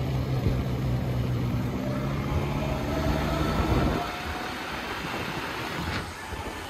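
A vehicle engine running with a steady low hum, which gives way about four seconds in to an even, noisy rush.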